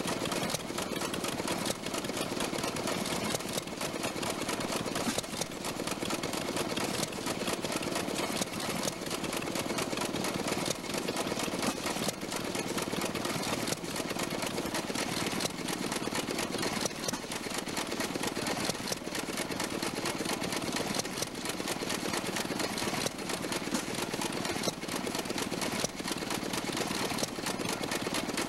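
Small antique stationary gas engine running steadily with a dense mechanical clatter, belt-driving a pump jack that works a hand water pump.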